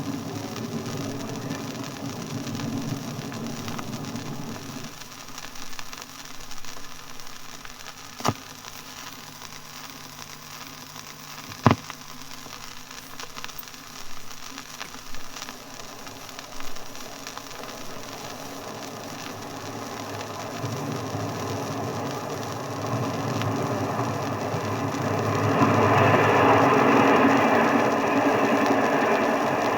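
Railway station platform ambience from a steam-era disc recording. A low rumble fades out about five seconds in, two sharp knocks follow a few seconds apart, then a broad rushing noise builds and is loud for the last few seconds.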